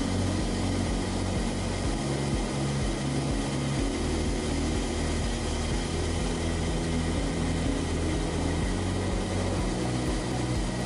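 Turboprop aircraft in flight: a steady drone of engine and propeller over rushing air, with a low, uneven throb underneath.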